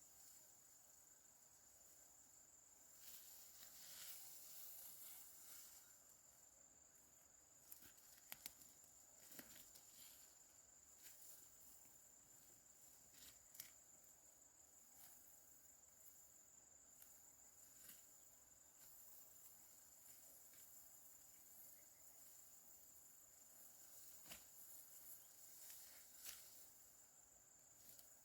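Faint, steady high-pitched insect buzzing, with a few soft clicks and rustles scattered through it.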